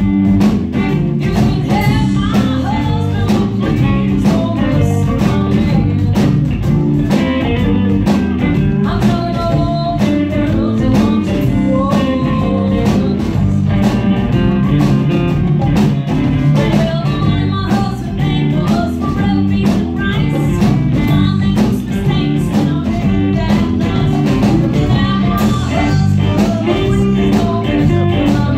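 Live blues band playing: guitar over bass and drums with a steady beat.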